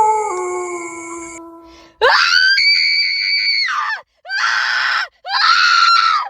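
A long howl fades out and steps down in pitch. About two seconds in, a high-pitched scream starts and is held for nearly two seconds, followed by two shorter screams. Each scream sweeps up at its start and drops off at its end.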